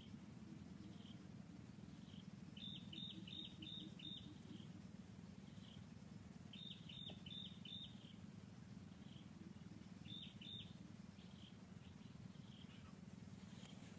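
Faint bird calls in the forest: three runs of three to five quick high chirps a few seconds apart, with single soft chirps about once a second between them, over a steady low background hum.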